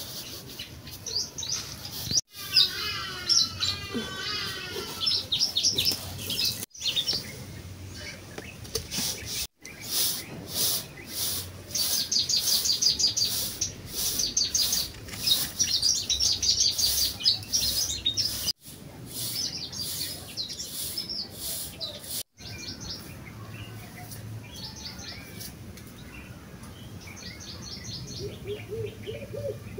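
Garden birds chirping and singing, with short trills and rising and falling phrases. Through the middle there is a run of short, evenly spaced swishes.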